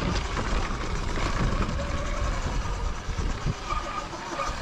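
Stock Sur-Ron electric dirt bike ridden down a rough dirt trail: wind buffeting the helmet microphone and the tyres and suspension rumbling and rattling over rocks and ruts. A faint electric motor whine comes and goes over it.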